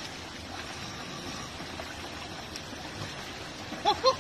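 Steady rush of water from a mountain stream running down a small channel into a bamboo basket trap.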